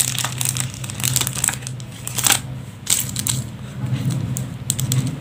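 Plastic blister packs of metal jig lures crinkling and crackling as they are handled and laid out side by side, in irregular bursts of rustle.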